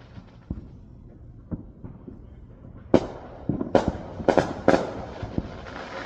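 Fireworks going off: a few faint pops, then about three seconds in a quick run of loud bangs, followed by a spread of crackling.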